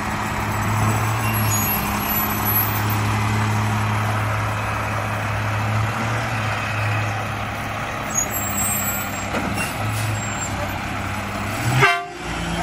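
Mack LR garbage truck's diesel engine running with a steady low drone as the truck creeps forward, with a short louder sound near the end.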